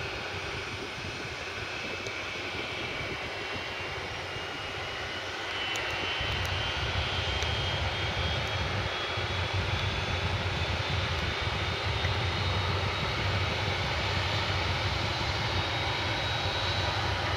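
Boeing 737-700's CFM56-7B turbofan engine spooling up during start: a whine rising steadily in pitch, with a low rumble coming in and the sound growing louder about five and a half seconds in.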